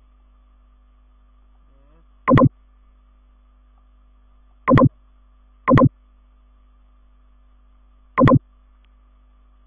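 Four short, loud clicks from computer mouse actions, each a brief pitched blip, about two, four and a half, five and a half and eight seconds in, over a faint steady electrical hum.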